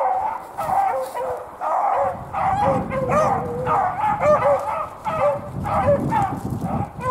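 Beagles baying as they run a rabbit, several dogs crying at once in repeated short, overlapping calls.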